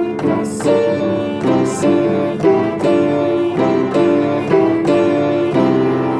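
Instrumental music: sustained pitched notes changing in a steady rhythm, with a few short sharp hits on top.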